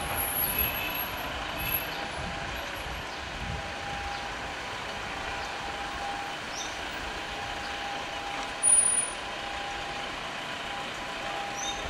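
City street traffic: a steady hum of vehicles, with a beeping tone that comes and goes and a short shrill squeal about nine seconds in.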